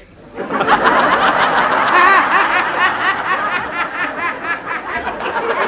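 Studio audience laughing, many voices together, breaking out about half a second in and carrying on, with the two actors' own laughter mixed in.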